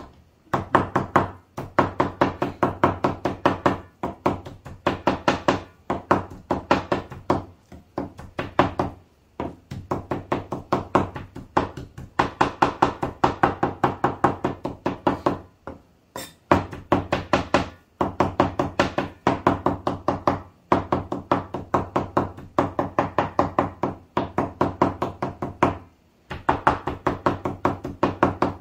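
Knife rapidly chopping meat on a wooden board, several strokes a second in runs of a few seconds with short pauses: squirrel meat being minced for laab.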